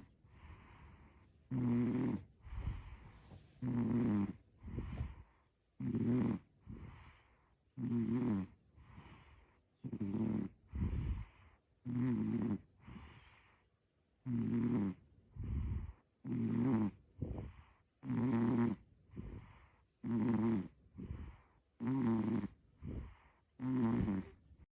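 American Shorthair cat snoring in its sleep, in an even rhythm of about one breath cycle every two seconds: each cycle is a louder pitched snore followed by a softer one.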